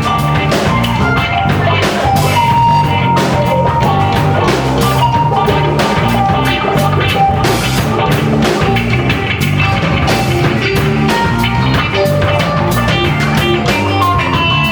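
Rock band playing live with no singing: a guitar melody over bass and drum kit with a steady beat.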